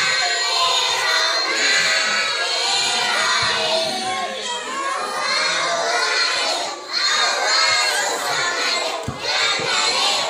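A group of young children singing a Malay song together loudly, close to shouting, their many voices overlapping.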